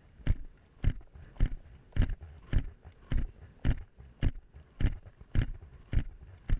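Helmet-mounted GoPro rattling and knocking on a smooth riding helmet in time with a horse's stride. A sharp knock comes a little under twice a second, with softer thuds between.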